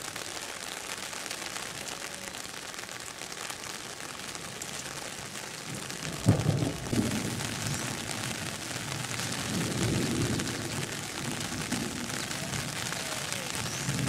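Steady hiss of rain falling, with a sudden low rumble about six seconds in and another low swell around ten seconds.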